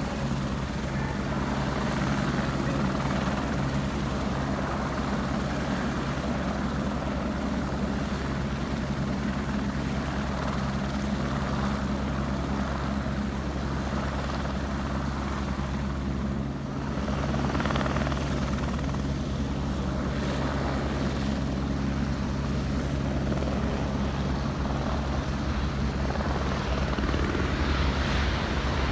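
Airbus H125 single-engine helicopter hovering, its turbine and rotor running steadily. The sound dips briefly about halfway through, then goes on a little louder.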